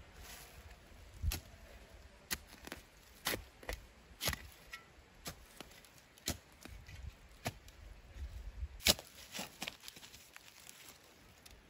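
Steel shovel blade jabbing and cutting into grassy soil while a planting hole is dug: a dozen or so sharp strikes at an uneven pace, with scraping between them.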